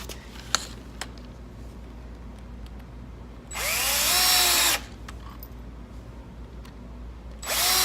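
Power drill driving long screws into the plywood feet of a desk: a run of about a second in the middle, the motor's pitch rising as it spins up, and a second run starting near the end. Two light knocks shortly after the start.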